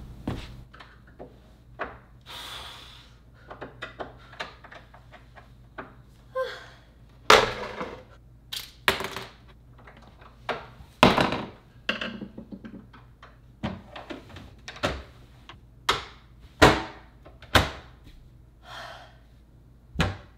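Irregular wooden knocks and clunks, over a dozen, some loud and some faint, from tools and hardware being handled inside a plywood kitchen base cabinet.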